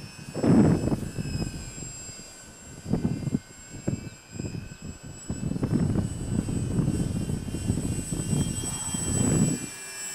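Electric motor and propeller of a small radio-controlled Fw 190A model flying overhead on a tiring battery: a thin high whine that drifts slightly in pitch as it passes. Gusty low rumbling runs under it, loudest about half a second in and again near the end.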